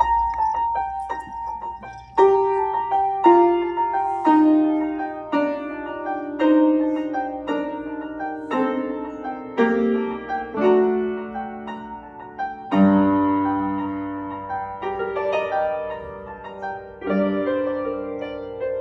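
Slow instrumental music of struck, ringing keyboard notes with a bell-like tone. It opens with about two seconds of quick, high tinkling, then moves to a gentle melody of about one note a second over chords, each note ringing and fading. A deeper bass note comes in about two-thirds of the way through.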